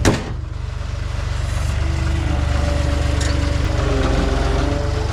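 Skid steer's diesel engine running steadily under load while it works against a heavy steel tank, with one sharp metallic knock at the start and a steady higher tone joining in from about two seconds in.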